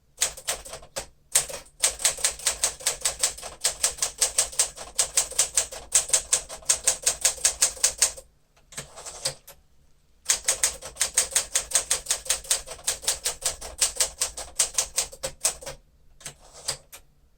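Keys of a 1956 Smith-Corona Clipper manual typewriter striking the platen in quick runs of about five strokes a second, pausing for about two seconds in the middle, then resuming and thinning out to a few strikes near the end.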